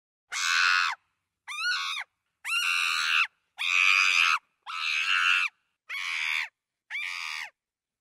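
Chimpanzee screaming: seven high-pitched screams in a row, each under a second long, with short gaps between them.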